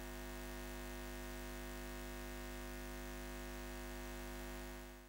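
Steady electric hum with a hiss over a deep low drone, holding even and fading out at the very end.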